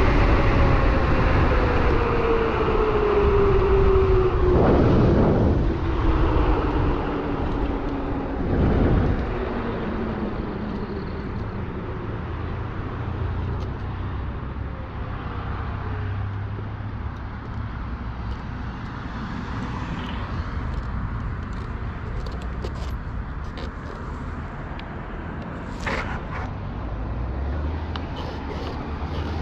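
Riding an electric bike: steady rumble and wind noise, with a hub-motor whine that falls slowly in pitch over the first few seconds as the bike slows. A few sharp clicks come near the end.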